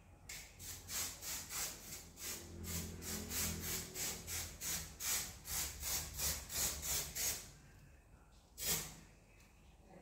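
Rhythmic rubbing or scrubbing strokes, about three a second, that stop after about seven seconds, followed by a single short sharp burst near the end.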